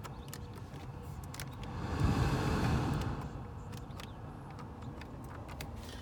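Scattered clicks of a car's interior control buttons being pressed, with a brief rushing swell that rises and fades about two seconds in.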